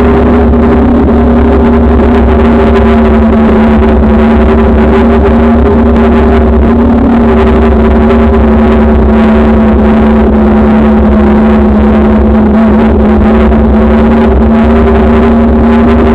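Loud steady drone of two held tones over a low rumble, unchanging throughout: wind and ride vibration picked up by a bike-mounted action camera while cycling along at an even pace.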